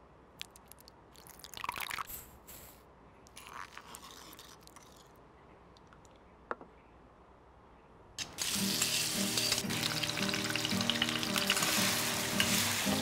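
Soft spooning and pouring sounds as thick sauces and oil go into a ceramic bowl, with a couple of brief scrapes. About eight seconds in, background music starts and becomes the loudest sound.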